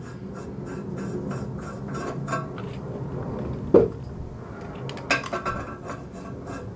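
Bronze threaded plug being screwed and unscrewed by hand in a cast iron exhaust manifold's threaded port: light metallic clicks and scraping of metal on metal, with a sharper click just under four seconds in and a cluster of clinks about five seconds in as the plug is set back on the thread.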